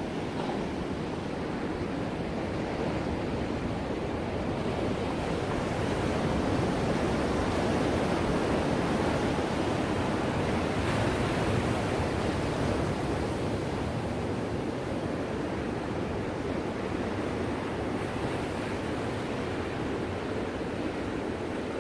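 Ocean surf breaking and washing ashore: a steady rushing of water that swells somewhat louder in the middle and then eases back.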